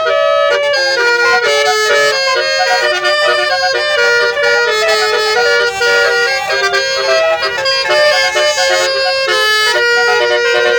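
Telolet basuri multi-tone air horn playing a fast, unbroken melody of shifting reedy notes.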